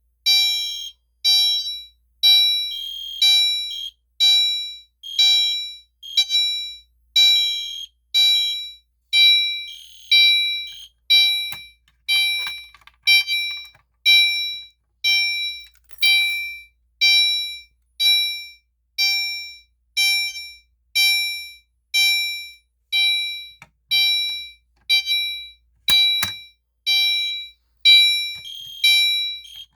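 Fire alarm horn strobes, an EST Genesis and a Gentex Commander 3 set off together by key activation, sounding a loud, high-pitched pulsed tone about once a second. There is a short knock near the end.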